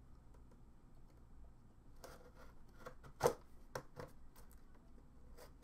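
Small knife cutting through tape on the product box while the packaging is handled: a series of short scratchy clicks and scrapes, starting about two seconds in, the loudest about a second later.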